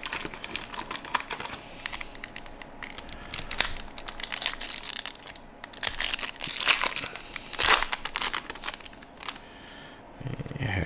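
Foil trading-card pack wrapper crinkling and tearing open, with the cards handled as they come out: a dense run of sharp crackles, loudest about four to eight seconds in.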